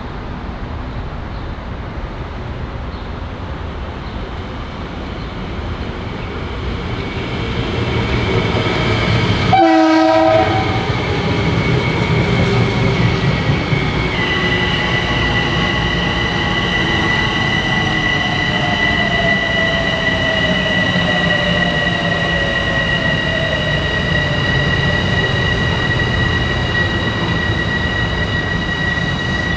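Metro-North commuter train coming through: its rumble builds, then it gives one short horn blast about ten seconds in. As it runs past, a steady high-pitched whine holds over the rumble, with a lower tone slowly falling in pitch.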